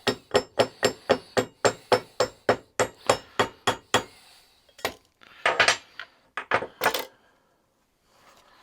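Hammer tapping on metal in a quick, even run of about three to four blows a second, driving a part into place on the vise; the blows stop about four seconds in. A few irregular knocks and clatter follow between about five and seven seconds in.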